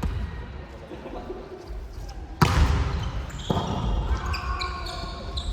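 Indoor volleyball play echoing in a gym hall: a sharp hit of the ball about two and a half seconds in, followed by players calling out.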